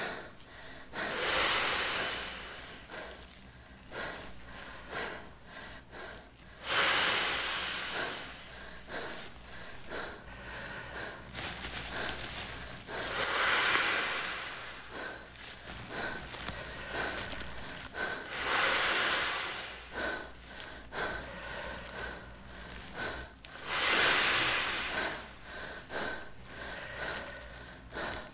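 A man blowing hard into a large plastic bag to inflate it with his breath: five long, forceful exhalations about five seconds apart, with quieter sounds between them.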